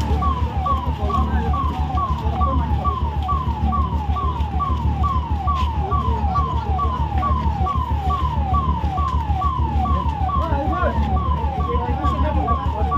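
Emergency vehicle siren sounding a fast, repeating falling wail, about two sweeps a second, over a steady low engine drone.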